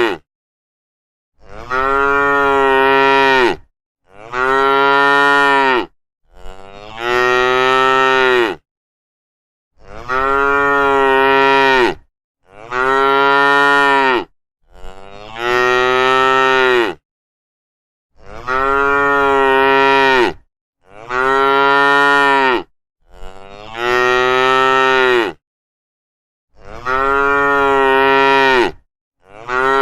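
A cow mooing over and over: about ten long moos, each around two seconds, with dead silence between them.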